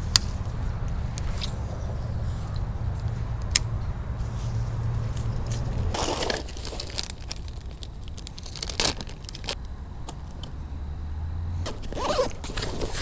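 Low steady rumble of passing road traffic, easing about halfway through, with scattered sharp clicks and scuffs of footsteps and handled gear.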